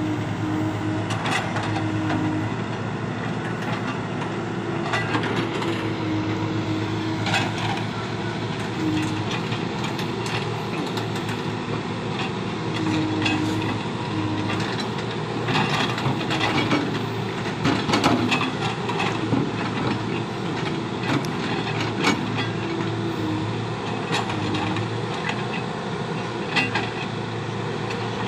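Case 851EX backhoe loader's diesel engine running steadily under load, its note shifting as the hydraulics work the digging arm. Scattered clunks and scrapes come from the bucket biting into stony soil.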